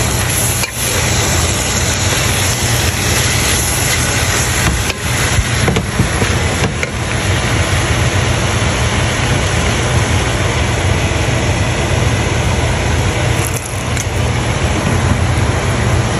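Shredded chicken and carrots frying in a nonstick pan with a steady hiss over a low hum. A wooden spoon scrapes and knocks against the pan a few times as it is stirred.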